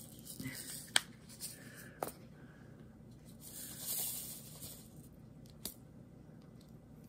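Small resin diamond-painting drills rattling and sliding in a plastic sorting tray as they are poured and handled, with three sharp clicks of plastic on plastic.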